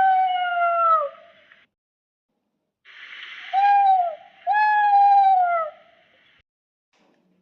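Baby spinosaurus call sound effect: three short pitched cries, each holding its pitch and then dropping off at the end. The first comes alone, and the other two follow close together a few seconds later.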